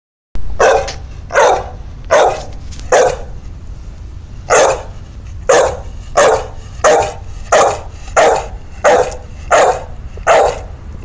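An American Pit Bull Terrier barking at a tennis ball held up in front of it: about thirteen short, loud barks at a steady pace of roughly one every 0.7 seconds, with a longer pause after the fourth bark.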